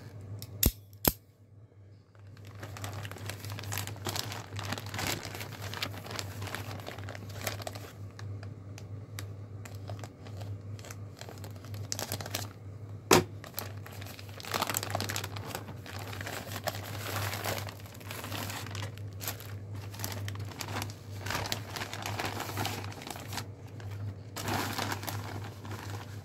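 A shipping package being cut open with a knife and its packaging crinkled and torn for a long stretch. Two sharp clicks come just under a second in, and another sharp click about halfway through.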